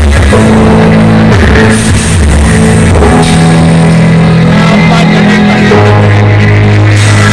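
Blizzard Audio sound system playing a rock-style track at full volume, with heavy held bass notes that shift every second or two under the guitar-led mix.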